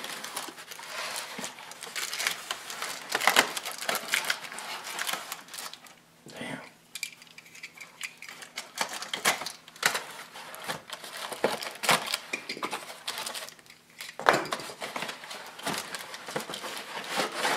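Paper and cardboard shoe packaging crinkling and rustling as it is handled and pulled open, with irregular sharp crackles and two short lulls.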